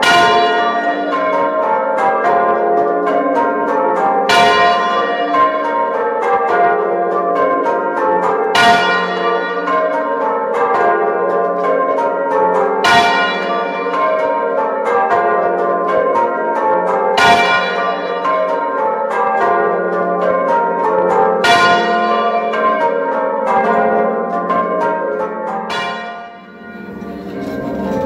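Fully muffled church bells rung full circle in changes, heard close from the bell chamber as a steady run of softened, overlapping strikes. The tenor is left open at backstroke, so it strikes clear once about every four seconds over the muffled bells. The sound dips briefly near the end.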